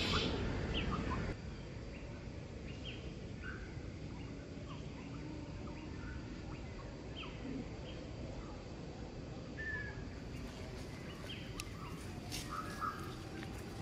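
Outdoor ambience with birds giving short, scattered chirps over a steady background hiss. A louder stretch of mixed noise cuts off abruptly a little over a second in.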